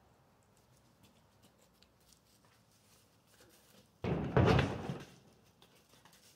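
A ewe's hooves banging and scraping against a plywood pen wall as she rears up onto it: one sudden loud clatter about four seconds in, lasting about a second.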